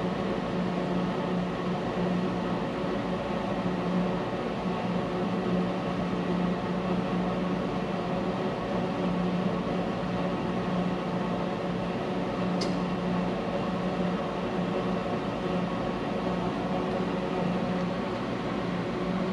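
Steady fan-like machine hum with a low steady tone, unchanging throughout; one faint click about two thirds of the way through.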